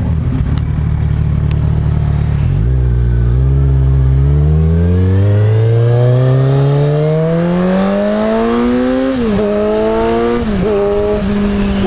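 2010 Kawasaki Z1000's inline-four engine, breathing through Vance & Hines CS One Urban Brawler slip-on mufflers, pulling away from a stop. It runs low and steady for a couple of seconds, then rises in pitch at length under acceleration, with two upshifts near the end where the pitch dips and climbs again. The stock catalytic header is still fitted, which the rider says is killing the tone.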